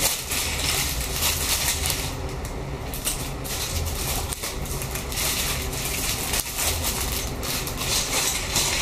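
Plastic parts bags crinkling while small plastic Lego bricks click and rattle against each other and the wooden table as they are sorted and poured out, a steady run of small clatters throughout.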